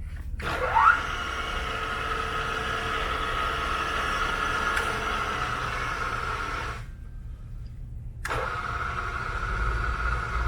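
Rambaudi MS2 vertical milling machine's 2.5 hp three-phase spindle motor and pulley drive spinning up with a rising whine, then running with a steady whine. It stops about 7 seconds in and starts again a second and a half later.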